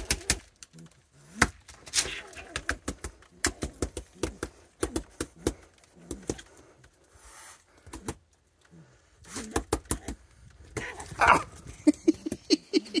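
Scuffling of a striped skunk at a seed dish on wooden deck boards, heard as irregular sharp clicks and taps. A quick run of louder pulses comes near the end as the skunk dashes off.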